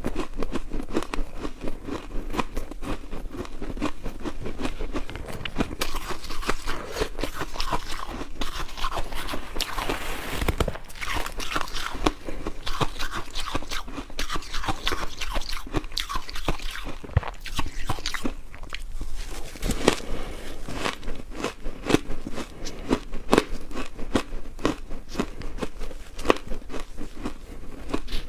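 Ice being bitten and chewed, a dense, continuous run of sharp, irregular crunches.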